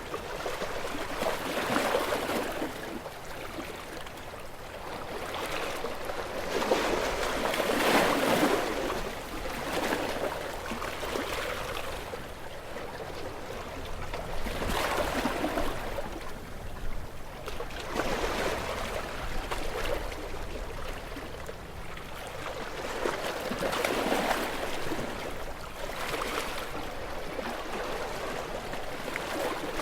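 Sea waves breaking against rocks, a steady wash of surf that swells with each wave every few seconds, the strongest surge about eight seconds in.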